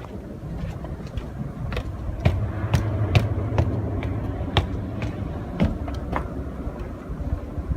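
Footsteps walking, a sharp step roughly every half second, over a steady low rumble that swells for a couple of seconds a little after the start.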